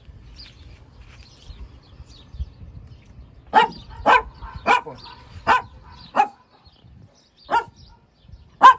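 Small Shih Tzu-type dog barking, about seven sharp single barks starting about three and a half seconds in, spaced roughly half a second to a second and a half apart; the last one is the loudest.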